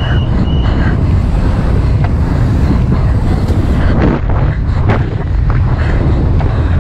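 Wind rushing over the microphone of a camera riding on a mountain bike at racing speed downhill, a loud steady low rumble. Two short high tones sound right at the start.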